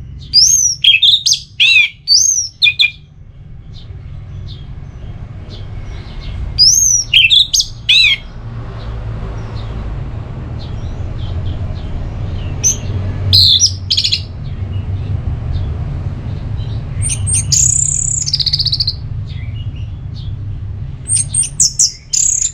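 Orange-headed thrush singing its loud 'ngeplong' song: short bursts of quick, sweeping whistled notes, about five phrases with pauses between them, over a low steady rumble.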